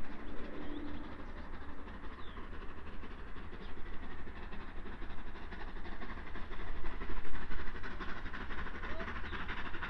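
Southern Railway Merchant Navy class steam locomotive 35018 British India Line approaching from a distance: a steady, far-off rumble of the working engine that grows slightly louder toward the end. A bird chirps briefly.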